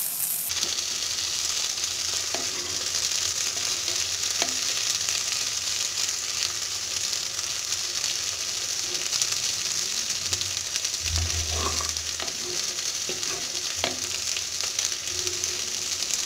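Gongura (sorrel) leaves and tomatoes frying in sesame oil in a clay pot, giving a steady sizzling hiss, stirred with a wooden spatula that adds a few soft knocks and scrapes.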